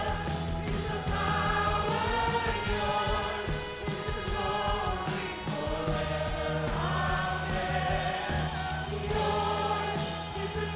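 Gospel worship music: a choir singing a slow song over held low accompaniment notes.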